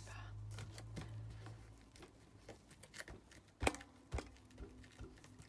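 Scattered light taps, clicks and rustles of paper-craft materials being handled on a desk. A low hum stops about two seconds in.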